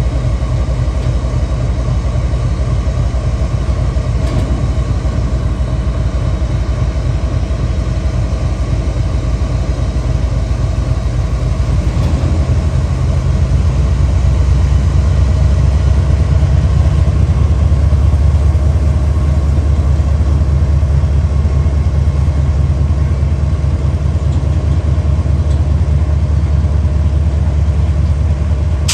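Indian Railways diesel goods locomotive's engine running steadily with a deep rumble as the train slowly pulls away. The engine grows louder about twelve seconds in.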